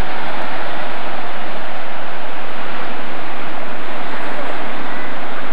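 Ocean surf breaking and washing over a rocky cobble beach: a steady rush of water.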